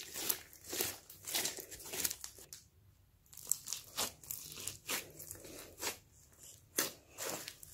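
Hands squishing and poking glossy slime packed with foam beads: irregular sticky pops and crackles, several a second, with a short lull about three seconds in.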